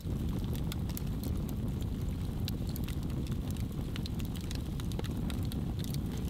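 Big logs burning in a Siberian log fire: frequent sharp crackles and pops from the wood over a steady low rumble.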